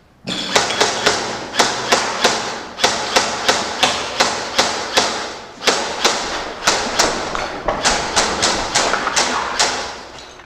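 Quick footsteps on a hard floor, about three thuds a second, over a constant rustle of clothing and gear, starting just after the beginning and easing off near the end.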